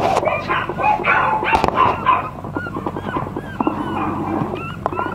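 Several toy poodle puppies whimpering and yipping: many short, high calls that overlap and come one after another.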